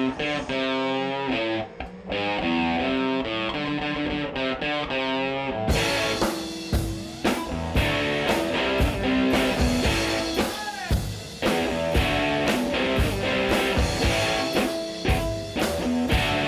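Soundtrack music: a guitar plays alone at first, then a drum kit comes in about six seconds in with a steady beat.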